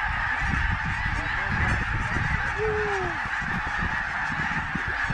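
A huge mixed flock of snow geese and Canada geese honking overhead, a dense, unbroken chorus of many birds, with a low rumble underneath and one nearer, falling honk standing out about two and a half seconds in.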